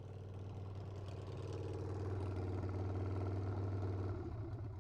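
Harley-Davidson Sportster V-twin engine running, warming up after its stuck carburetor float needle was freed. It grows steadily louder, then drops back a little about four seconds in.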